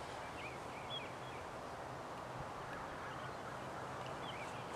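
Outdoor ambience: a steady background hush with small birds chirping faintly a few times, in a cluster about half a second in and again near the end.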